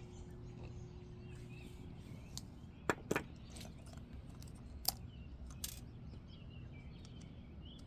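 Small plastic toy parts being handled: a few sharp clicks and taps, about three seconds in and again around five seconds, over a steady low hum.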